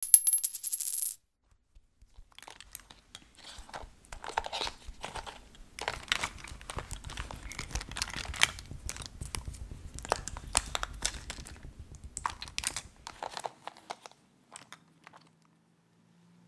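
Close-miked crinkling and crackling: dense, irregular clicks over a low rumble that fade out near the end, after a brief high-pitched tone at the very start.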